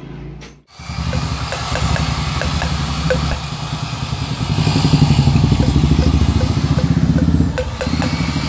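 An engine running at idle, with a fast, even chugging beat and a light tick repeating a few times a second. There is a brief cut-out just before the first second, and the engine gets louder in the middle.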